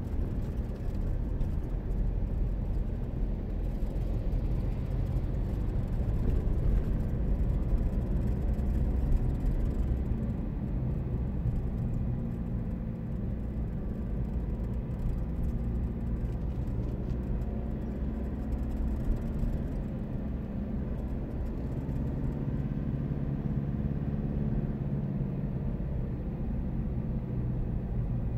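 Car engine and tyre noise heard from inside the cabin while driving: a steady low rumble with a faint engine hum.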